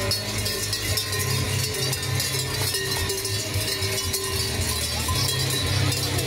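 Large bells worn by costumed Perchten clanging continuously and densely as the figures run.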